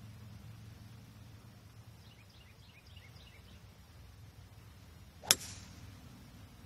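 A golf club striking a teed-up golf ball on a tee shot: one sharp crack a little over five seconds in, with a brief ring after it.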